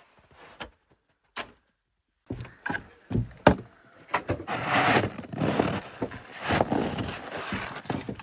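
A run of sharp wooden knocks and thuds, joined a little past halfway by a rough scraping, rustling noise.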